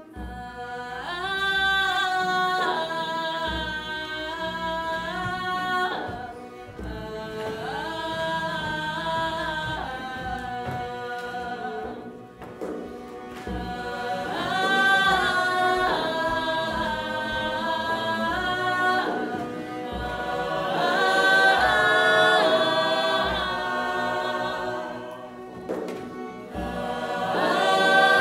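A group of voices singing a slow song in long held notes that bend from pitch to pitch, phrase after phrase with short breaks between.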